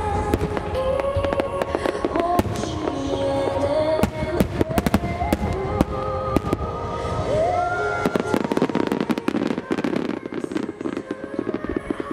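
Aerial firework shells bursting one after another over music, with a dense run of rapid reports about eight to ten seconds in.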